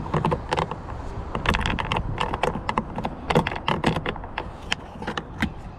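Quick, irregular clicks and ticks of a screwdriver and plastic door trim parts being worked by hand, with many short taps in close succession.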